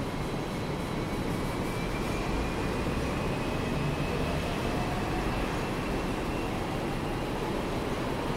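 Hong Kong double-decker electric tram running, heard from on board: a steady rumble, with a faint whine rising slowly in pitch through the middle.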